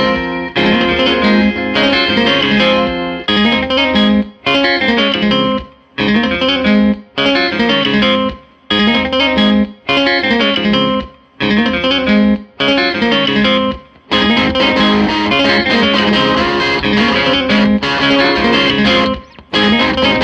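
Background music led by guitar, played in short phrases broken by brief stops for the first fourteen seconds or so, then running on without a break.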